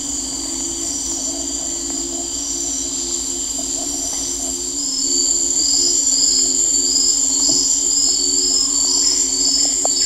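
Amazon rainforest insect chorus: steady high-pitched calls over a low pulsing hum, joined about halfway by a repeated short high chirp about twice a second.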